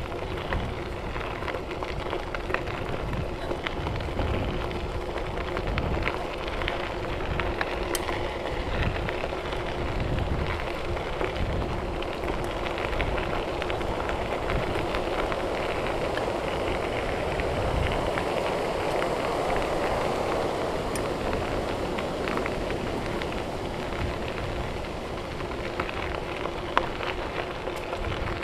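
Mountain bike tyres rolling over a gravel trail, a steady crackling crunch, with wind buffeting the microphone in uneven low gusts.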